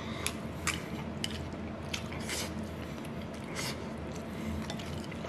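A person eating: chewing, with a few sharp clicks and short scrapes of cutlery on a dish over a low steady hum.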